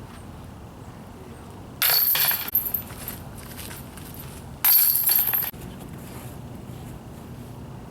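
Two putts hitting the chains of a disc golf basket, each a brief metallic jingle of rattling chains, about three seconds apart.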